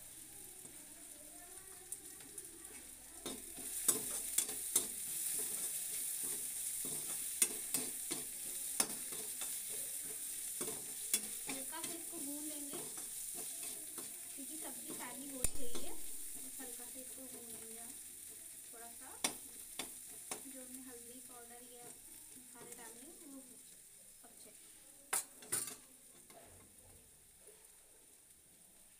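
Sarputiya gourd frying in oil in a steel kadhai: a steady sizzle, with the spatula clicking and scraping against the pan as it is stirred after salt, turmeric and masala go in. The sizzle picks up about three seconds in and dies down over the last few seconds, and there is one louder dull knock about halfway through.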